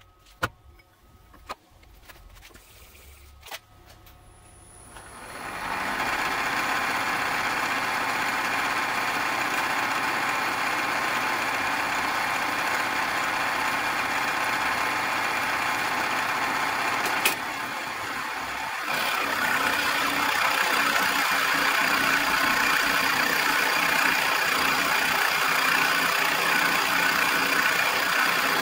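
A milling machine's spindle, fitted with a fly cutter, starts up about five seconds in after a few small clicks and then runs steadily. After a sharp click about two-thirds of the way through, the sound steps up louder as the fly cutter begins facing the top of a steel block.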